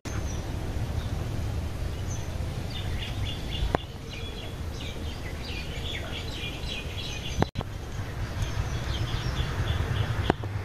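Small birds chirping in quick, repeated trills over a steady low hum of outdoor ambience. The trills come in two spells, about three seconds in and again near the end, and the background cuts off abruptly a few times.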